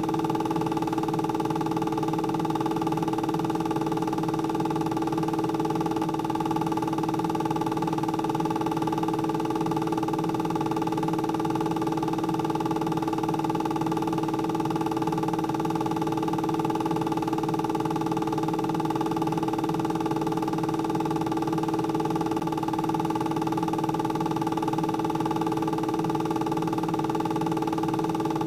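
A steady, unchanging hum made of several held tones.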